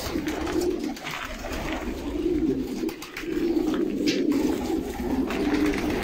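Domestic pigeons cooing, several birds' low coos overlapping one after another, with a couple of brief clicks.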